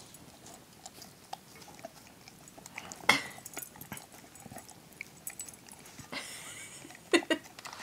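A dog nibbling and chewing a soft pumpkin dog muffin in a bowl: small scattered clicks of teeth and mouth, with one sharp knock against the bowl about three seconds in.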